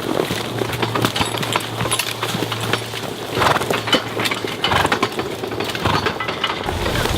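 Working horse's hooves clopping, with the irregular knocking and clatter of the horse-drawn log trailer, over a steady low hum that fades out partway through.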